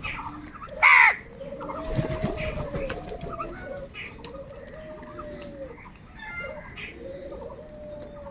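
Crows calling: one loud, harsh caw about a second in, then a run of drawn-out, arching lower calls from birds, about one a second.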